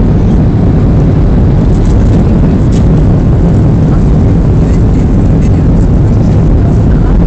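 Jet airliner cabin noise on final approach for landing: a loud, steady low rumble of engines and rushing air, heard from a seat over the wing.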